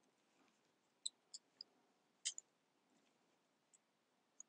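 Near silence broken by a few faint, short clicks and taps, the loudest a little past two seconds in, as pinches of clay are handled on a small digital scale.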